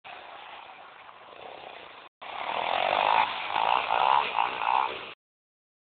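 Kawasaki KLX110 dirt bike's small four-stroke single-cylinder engine running: a steady drone for about two seconds, then, after a short break, louder with a quick series of rising and falling revs before it cuts off suddenly.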